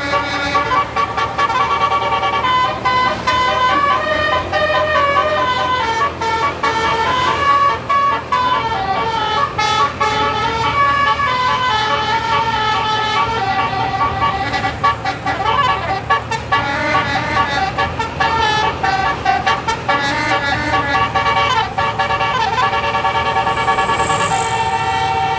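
Basuri multi-tone 'telolet' bus air horn playing a tune, its notes stepping up and down without a break.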